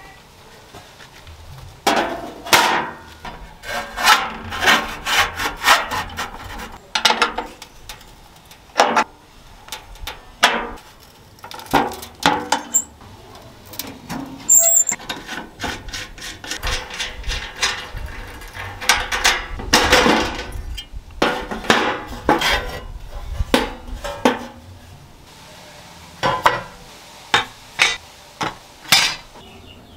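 Hand tools working small metal parts: irregular taps and knocks with scraping and rubbing between them, coming in quick clusters.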